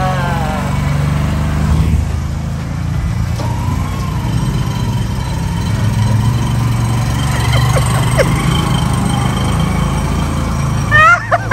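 Small boda-boda motorcycle engines running steadily at low speed as the bikes move off with riders aboard.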